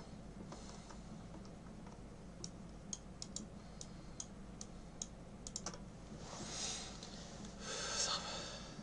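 Scattered clicks of computer keys being tapped, with a steady low hum underneath, then two short rushes of noise near the end, the second the loudest.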